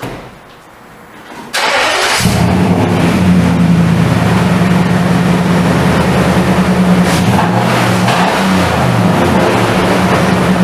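2015 Nissan Titan's 5.6-litre V8 cranked and started just after its oil change: a short burst of cranking about a second and a half in, then the engine catches and runs at a steady idle.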